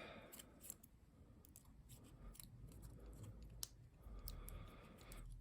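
Faint, scattered light clicks and taps of small metal lock parts and tools being handled.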